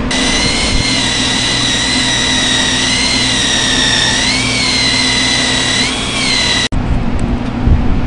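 Hand-held rotary grinder buffing out damaged rubber in a large OTR tire crater to prepare it for vulcanizing repair: a steady high whine that sags in pitch twice as the tool is pressed into the rubber, then cuts off abruptly near the end.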